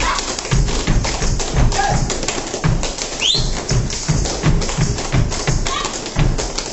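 Gumboot dancing: a troupe slapping and stamping their rubber gumboots in a quick, steady rhythm, dense sharp slaps over low stamps about three a second. A short rising high call cuts through about three seconds in.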